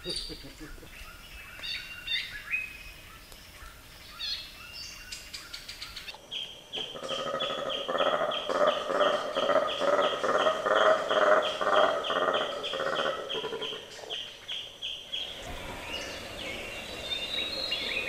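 Rainforest birds calling and chirping. In the middle comes a long run of loud, evenly repeated calls, about three a second, which then stops and gives way to scattered chirps again.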